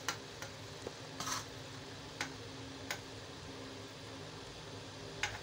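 Metal ladle clinking and scraping against a metal cooking pot as potatoes are stirred and lifted out of boiling stock to check their softness: a handful of separate light clicks, one a little longer about a second in.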